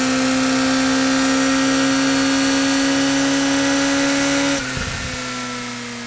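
Suzuki Hayabusa's inline-four engine at high revs in sixth gear, its pitch rising slowly under hard acceleration. About four and a half seconds in the throttle shuts: the note drops sharply and then falls away slowly as the bike slows.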